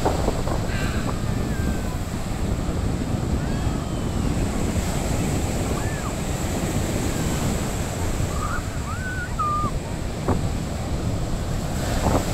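Sea surf breaking and washing up a sandy shore, a steady rush of waves, with wind buffeting the microphone.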